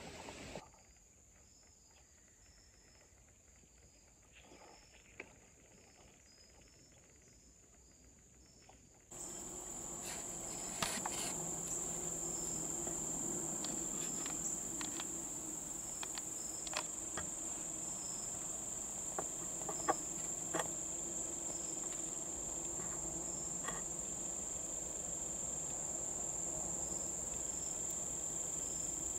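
Insects trilling: a steady high-pitched drone. Faint, evenly repeating chirps come before it, and about nine seconds in it turns suddenly louder. A few scattered clicks sound over it.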